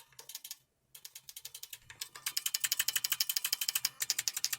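Buckling-spring key on a new Model F reproduction keyboard pressed over and over in a fast run of clicks, which get much louder about two seconds in. The key sounds tinny, the sign of a spring that doesn't buckle properly and that stretching has not fixed.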